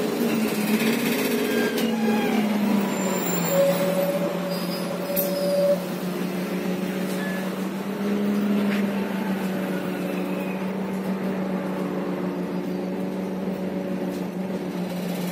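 Inside an Irisbus Agora L articulated CNG bus under way: the Renault gas engine's note falls over the first few seconds as the revs drop, then settles into a steady drone. A short high squeal sounds from about three and a half to six seconds in.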